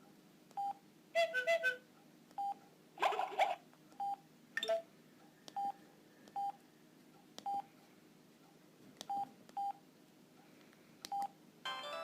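Samsung SGH-E330 mobile phone giving short single keypad beeps, roughly one a second, with a few brief jumbles of tones in the first few seconds. Near the end the next ringtone melody starts playing.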